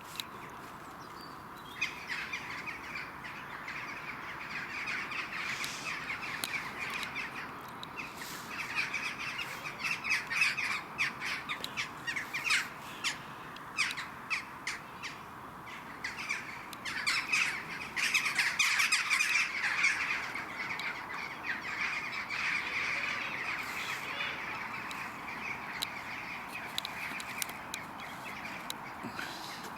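A flock of birds calling: a dense, continuous chatter of many overlapping calls that sets in about two seconds in and swells twice, in the middle and again later.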